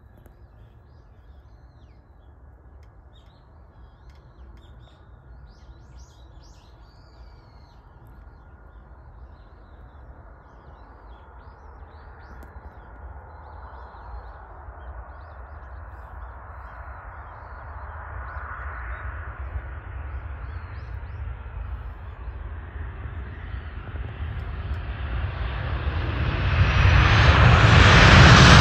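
Skymark Boeing 737-800 jet on approach. The engine sound grows steadily louder as the airliner comes in, reaching its loudest as it passes close by near the end. Faint bird chirps can be heard while the jet is still distant.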